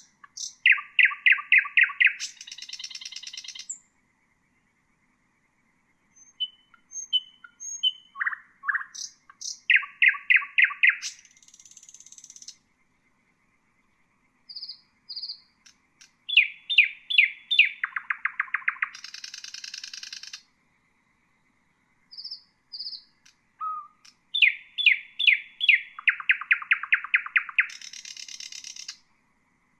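Nightingale singing: four song phrases a few seconds apart, each a fast run of loud repeated notes that ends in a buzzy rattle.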